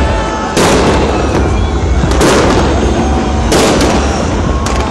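Aerial fireworks shells bursting: a run of heavy bangs, one about every second and a half, each trailing into a long echoing rumble, over a continuous din of more distant bursts.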